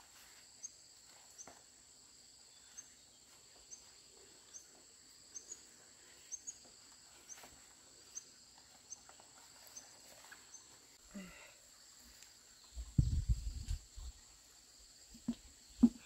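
Insects droning steadily in a high, even tone, with a faint short chirp about once a second, over soft taps and scrapes as sticky pounded dough is scraped off a wooden pestle onto banana leaves. A cluster of low thuds comes about thirteen seconds in, and a sharp knock near the end.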